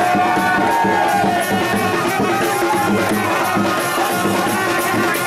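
Music with a melody line over a steady beat of high, ticking percussion.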